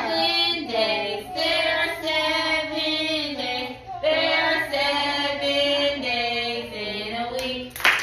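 A woman and young children singing a song together, a continuous melody of long held notes.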